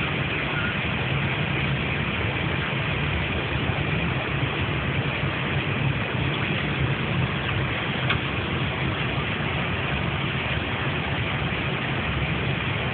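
Steady rushing cabin noise of an Airbus airliner's cockpit, with a low hum under it, continuous and unchanging.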